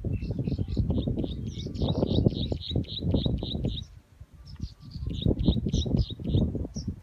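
A bird calling in two runs of short, quick high chirps, about five a second, with a brief break about four seconds in. Under it runs a loud low rumbling noise that is louder than the bird and dips at the same break.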